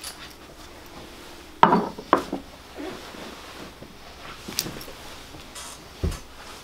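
A few short knocks and clicks, loudest about a second and a half in and again just after two seconds, with a dull low thump near the end.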